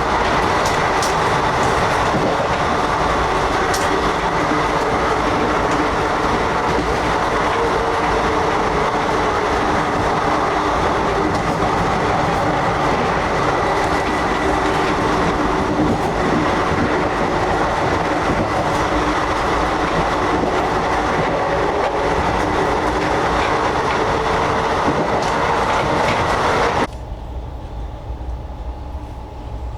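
Running train heard from inside an Indian Railways 2nd AC coach: a steady, loud rumble and rattle of wheels and carriage. Near the end the sound drops suddenly to a quieter, muffled hum.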